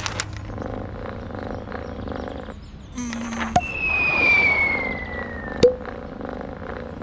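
Cartoon falling-whistle effect, a single tone sliding steadily down in pitch for about two seconds, ending in a sharp splat as a pigeon's dropping lands on the cat, over a faint steady outdoor insect ambience.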